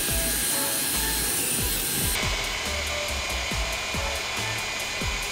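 Ridgid dual-paddle mortar mixer running on its preset program, paddles churning a full bucket of thinset mortar: a steady motor noise with a scraping hiss.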